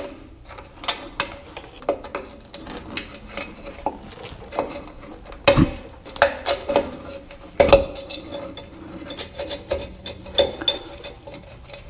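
Metal clinking, scraping and tapping as an old parking-brake cable and its coiled spring are worked loose from a drum-brake backing plate. There are scattered small clicks and a few sharper knocks, the loudest about five and a half and seven and a half seconds in.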